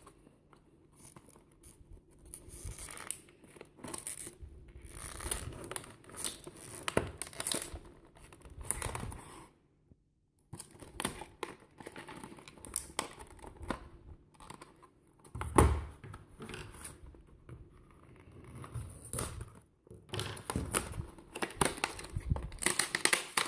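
Toy packaging being opened by hand: cardboard and plastic wrapping tearing and crinkling in irregular bursts, with a thump about fifteen seconds in.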